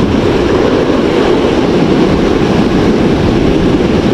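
Steady roar of river water rushing through a dam and fish ladder, a loud, even noise with no change.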